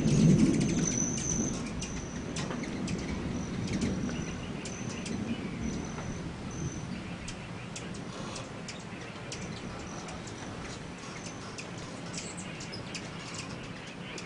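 Many hummingbirds chattering at feeders, a steady scatter of high thin squeaks and chip notes. A low rumble fades away over the first couple of seconds.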